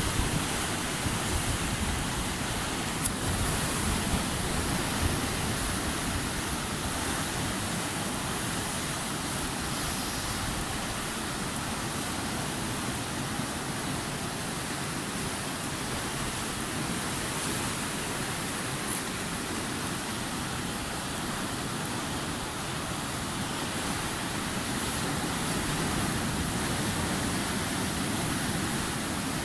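Steady roar of storm-driven surf breaking, with strong wind blowing.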